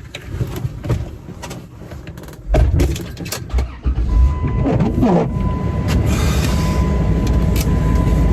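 A few clicks and knocks, then a car engine starts about two and a half seconds in and keeps running with a steady low rumble. From about four seconds in, a thin, steady electronic chime tone sounds over it.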